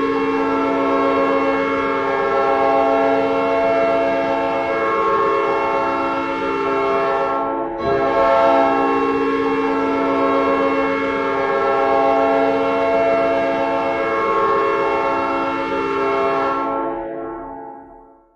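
NHL arena goal horn, an air horn, sounding a long steady blast. It breaks off briefly about halfway, then sounds again and fades out near the end.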